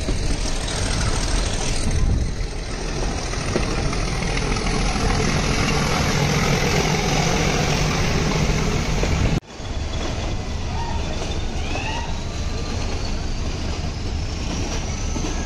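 Nilgiri toy train coach running along the track behind a diesel locomotive: a steady rumble of wheels and engine. It cuts off sharply about nine seconds in and resumes at once.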